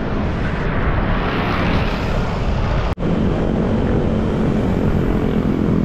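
Road noise while cycling: steady wind rumble on the microphone mixed with passing motor traffic. The sound drops out for an instant about three seconds in.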